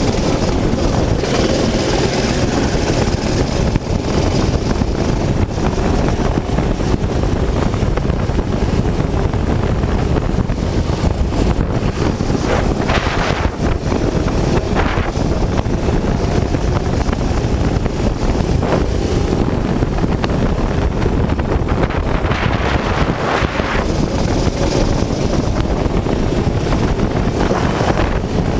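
Go-kart engine running at race pace, heard from an onboard camera, with heavy wind noise on the microphone.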